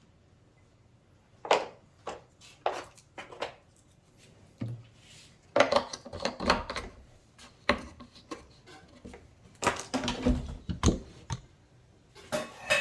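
Irregular clicks, taps and knocks of hard parts being handled and set down, busiest about six and ten seconds in.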